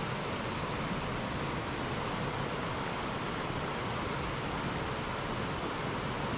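Stream water rushing over rock ledges in small cascades and rapids: a steady, even rush.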